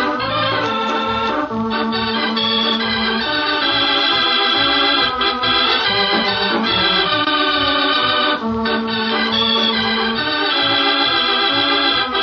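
Organ music playing the radio show's opening theme: held chords with a melody moving over them, some notes sustained for a second or more.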